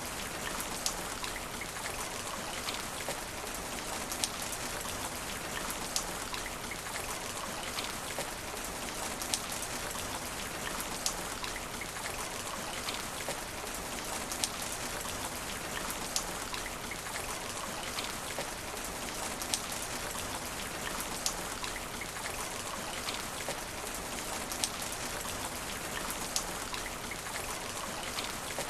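Steady rain hitting asphalt: an even hiss of falling drops, with sharper drop ticks standing out every second or two.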